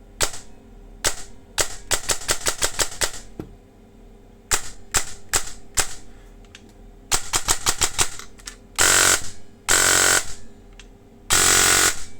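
Airsoft electric gun with an 18:1 DSG gearbox and a T238 brushless motor firing: single shots and short rapid strings at first, then four half-second full-auto bursts near the end, so fast that the shots blur into one continuous buzz. The gearbox is set to precock.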